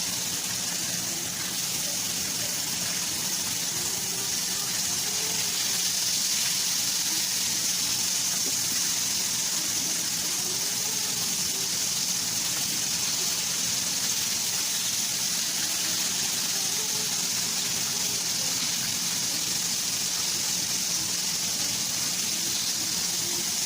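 Breaded chicken nuggets frying in a pan of hot oil, a steady sizzle.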